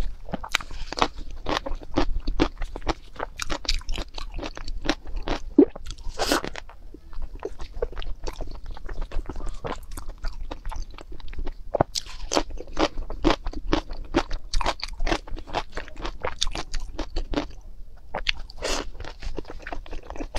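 Close-miked eating sounds: a person biting into crisp yellow food slices and chewing them, with many sharp crunches in quick succession.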